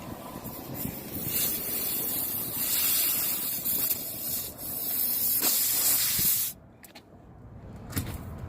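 Steady hiss of air escaping from a punctured car tire. It cuts off suddenly about six and a half seconds in and comes back about a second and a half later.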